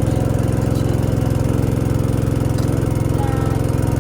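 A small engine running steadily at an even, rapid pulse, close and loud.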